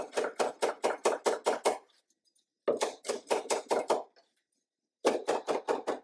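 Cleaver blade chopping fresh herbs on a wooden cutting board: rapid knocks of the blade on the board, about seven a second, in three runs broken by two short pauses.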